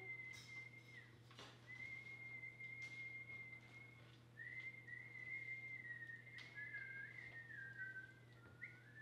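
Faint whistling of long, steady held notes at one high pitch, with short breaks between them. In the second half the pitch wavers and slips a little lower, and two whistled notes briefly overlap.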